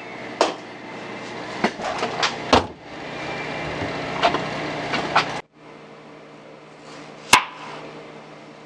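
Clicks and knocks of a lidded plastic bowl being handled and set down on a refrigerator shelf, over a steady background hum. After a sudden drop in level, a knife knocks once through a tomato onto a cutting board near the end.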